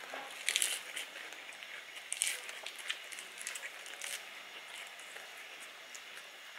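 Crisp food being bitten and chewed: a handful of short, sharp crunches and crackles, the loudest about half a second in and again around two seconds.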